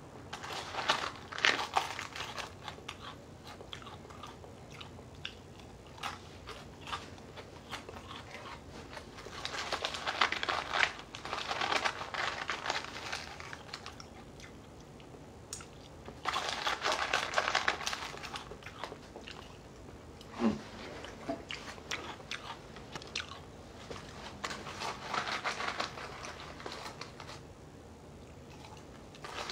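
Dry Lucky Charms cereal, oat pieces and hard marshmallows, crunched and chewed by mouth in several separate bouts of crunching.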